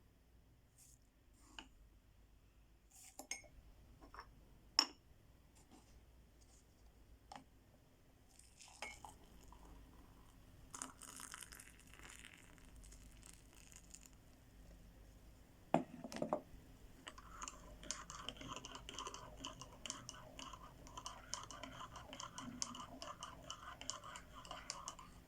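Faint scattered taps and light clinks of small objects being handled, a single louder knock, then a fast, steady run of scratching strokes through the last third.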